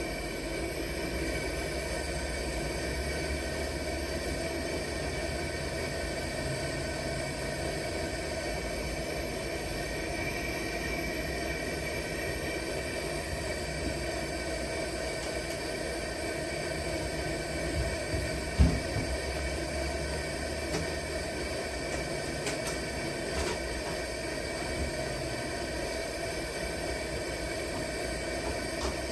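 Lit burner of a 1940s Preway P4521 two-burner camp stove running steadily under a pot of water, a continuous even flame noise weighted low. There is a single short thump about eighteen seconds in.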